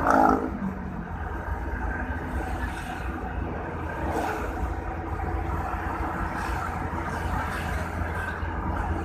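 Steady low rumble of a moving vehicle's engine, tyres and wind on a paved road. Right at the start a short, louder sound drops quickly in pitch, and a fainter falling sound comes about four seconds in.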